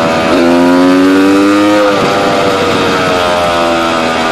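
Quad fitted with a Honda CR250 two-stroke engine, running under throttle. Its pitch climbs steadily for about a second and a half, drops sharply about two seconds in, then sinks slowly.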